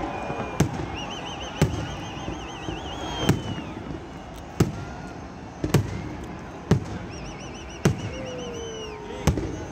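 Aerial fireworks banging about once a second, eight sharp reports in all. A high warbling whistle sounds over them twice.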